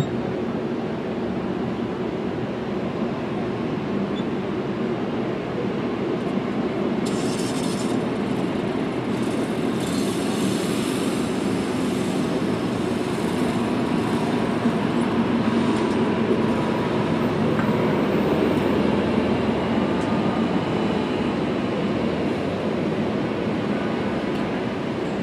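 Steady outdoor mechanical drone with a hissing edge and a faint held hum, with a few short hissy surges about a third of the way in.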